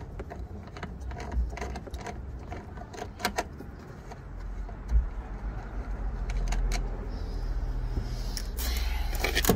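Scattered small clicks and rattles of hands and tools working the tail light's fastenings and wiring in a car trunk. A low steady hum comes in about halfway through.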